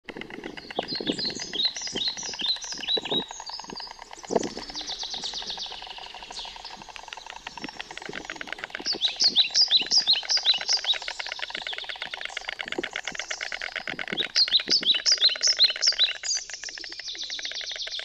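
Small songbirds chirping: three runs of quick, high, falling notes, over a dense background of rapid chirping from other birds.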